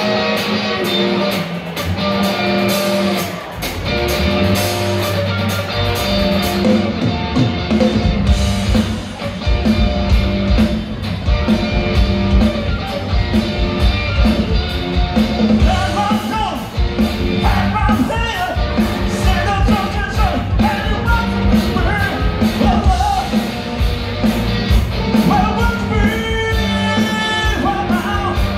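Live rock band playing through a PA: electric guitars, bass and drums, with a lead singer coming in about halfway through.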